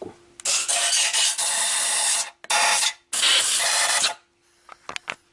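Compressed-air blow gun blasting in three bursts, a long one of nearly two seconds, a short one and one of about a second, blowing milling swarf off a machined cylinder head. A few light clicks follow near the end.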